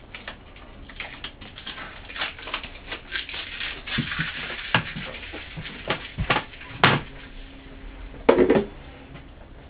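Hands handling a woofer on a workbench: scattered light scratches, scrapes and small taps, a sharp click just before the seventh second, and a louder knocking rustle about a second later.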